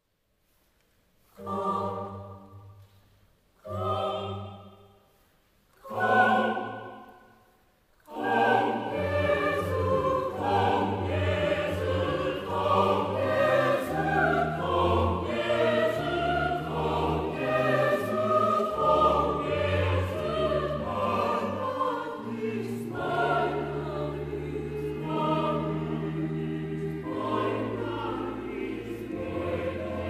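Background choral music: three held chords that swell and fade one after another, then from about eight seconds in a continuous choral and orchestral passage.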